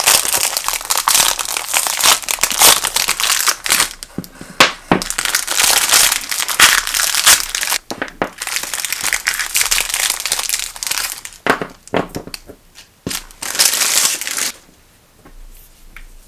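Thin clear plastic film wrapping crinkling loudly as it is peeled off a stack of washi tape rolls and crumpled in the hands. The crinkling stops suddenly near the end, leaving a few faint clicks.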